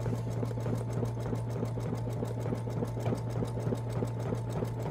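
Computerized embroidery machine stitching out a design, a rapid, even run of needle strokes over a steady motor hum.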